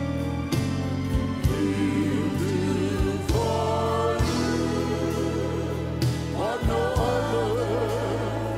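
Live gospel music: a choir of voices holds long notes with vibrato over piano, bass and drums.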